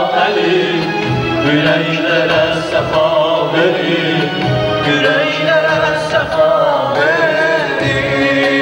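Male voice singing a devotional mugham-style ilahi, with long wavering ornamented notes, over a synthesizer keyboard accompaniment.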